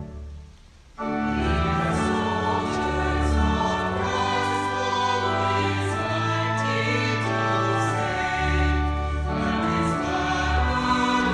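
A choir singing a hymn verse in parts over a sustained instrumental accompaniment. The singing comes in after a brief hush about a second in.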